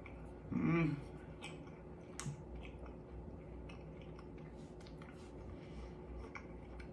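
A person chewing a soft chocolate peanut butter cup with the mouth closed, giving faint wet mouth clicks, with a short hummed "mm" about half a second in.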